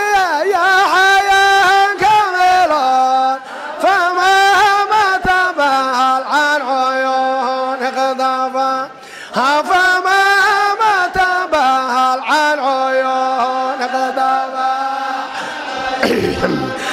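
A single voice chanting an Arabic devotional song in long, drawn-out melodic phrases with held, wavering notes. There are three phrases, broken by short pauses about three and nine seconds in, and near the end the sound turns busier and less clear.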